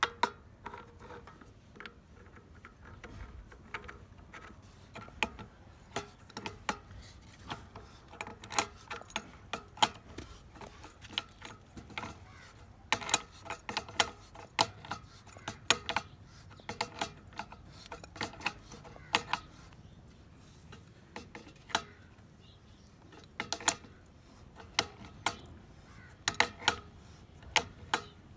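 Irregular sharp metallic clicks and clinks of plumbing fittings being handled and fitted together, coming in quick clusters with short pauses between.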